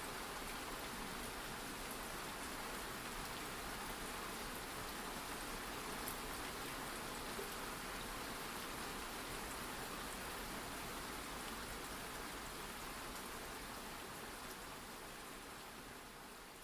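Steady rain, an even hiss of falling rain, fading out near the end.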